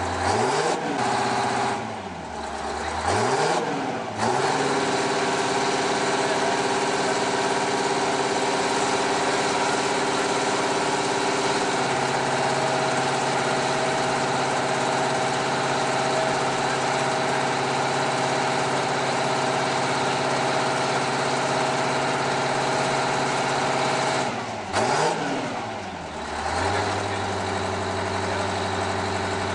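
Big Bud 747 tractor's Detroit Diesel 16V-92 two-stroke V16 diesel, standing still and revved up twice in the first few seconds, then held at a high, steady speed. Near the end the revs drop, blip up briefly, and settle back to a lower running speed.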